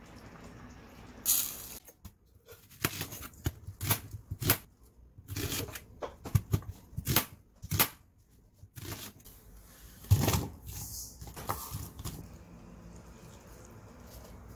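Kitchen knife cutting through an onion on a metal cutting board: a run of irregular sharp knocks and slicing clicks, some with a dull thud as the blade meets the board.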